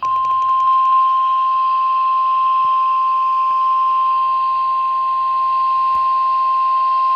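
NOAA Weather Radio 1050 Hz warning alarm tone: a single steady, loud beep held without a break over radio hiss, the signal that a warning broadcast follows.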